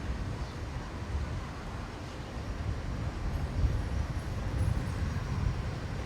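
Wind buffeting a Boya MM1 microphone, a steady uneven low rumble that rises and falls in gusts.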